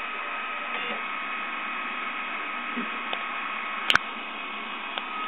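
Solidoodle 3D printer running as it prints: a steady hum and whine with an even hiss. A single sharp click sounds about four seconds in.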